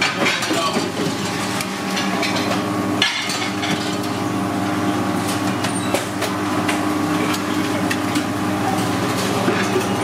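Restaurant kitchen sounds: a steady machinery hum under scattered clinks and knocks of plates and utensils on a steel counter.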